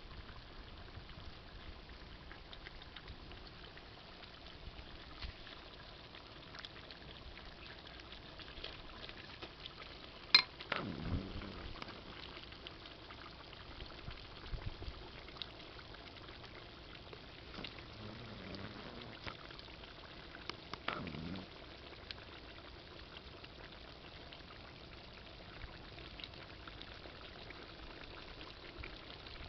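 Crab curry simmering and bubbling steadily in an open metal pot over a wood fire. A single sharp click comes about ten seconds in, with a few fainter knocks later.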